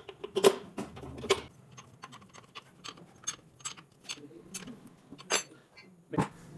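Metallic clinks and ticks of a spanner working the axle nut and brake-arm fittings on a motorcycle's front wheel, with a few sharper knocks about half a second in, just over a second in, and twice near the end.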